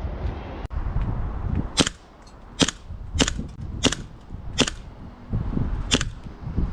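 CO2 BB pistol firing six sharp pops. The first five come about two-thirds of a second apart, and the last follows after a longer pause.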